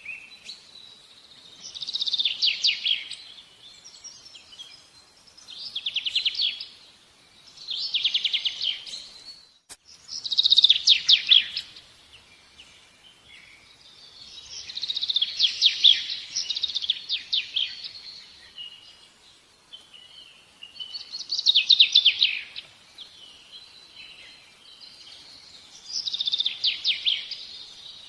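A small songbird singing: repeated bursts of fast, high trilled song, each a second or two long, about every three to five seconds, with one longer phrase midway.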